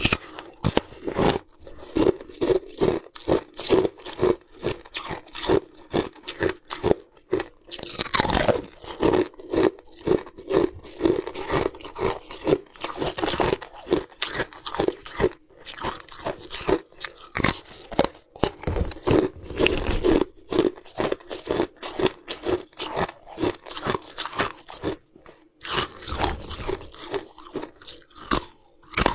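Close-up crunching of chunks of pale green ice being bitten and chewed: a dense, continuous run of sharp crunches, several a second.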